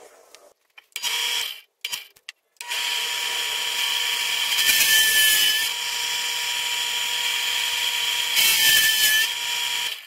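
Drill press running with a steady motor whine, its large twist bit boring into Douglas fir; the cutting gets louder and rougher twice, about two seconds after the motor starts and again near the end. A few short handling knocks come before the motor starts, and it stops abruptly.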